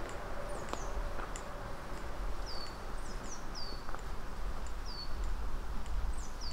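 A songbird giving short, high chirps that each slide down in pitch, repeated every second or so, over a low rumble.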